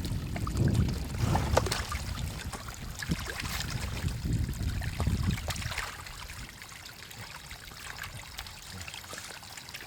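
Water trickling and splashing, with scattered small splashes and a low rumble that ease off about six seconds in, leaving a quieter trickle.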